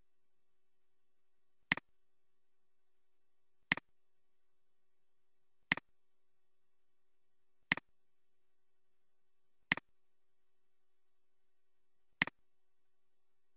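Computer mouse clicks: six single clicks about two seconds apart, each a sharp press followed closely by a softer release.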